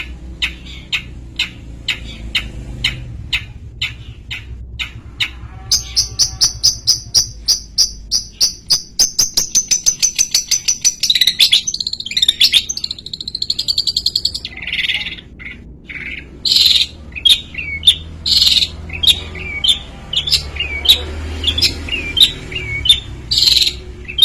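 Long-tailed shrike singing: a run of sharp, evenly spaced calls about three a second, then a fast high trill lasting several seconds, then varied short chirping phrases.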